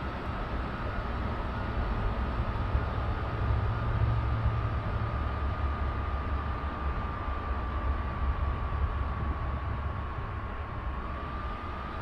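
Vevor diesel heater's blower fan running with a steady high whine over a low rumble, the pitch sagging slightly and coming back up near the end. The heater has thrown its E05 overheating code and is running down to shut off.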